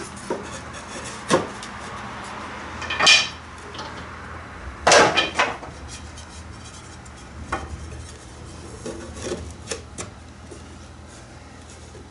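Thin wooden rail strips clattering and knocking against each other and against the plywood edge as they are handled and pressed into place, with some rubbing of wood on wood. The knocks are scattered and sharp, the loudest a quick cluster about five seconds in.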